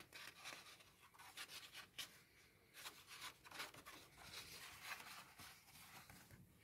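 Glossy paper pages of a comic-and-puzzle book being leafed through by hand: a soft, quick run of rustles and flaps as several pages are turned one after another.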